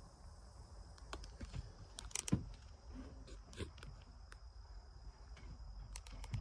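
Faint scattered clicks and taps, with one louder knock about two and a half seconds in, over a steady thin high-pitched tone and a low rumble.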